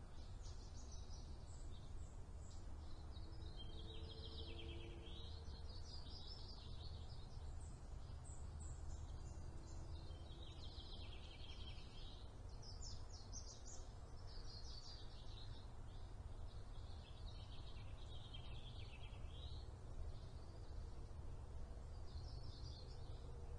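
Songbirds singing somewhere off camera in quick, jumbled phrases a few seconds apart, over a steady low outdoor rumble.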